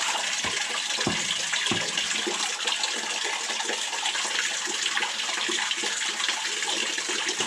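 Water running and splashing steadily, with crushed quartz gravel swishing and clicking in a gold pan as it is swirled. A few sharper knocks come in the first two seconds.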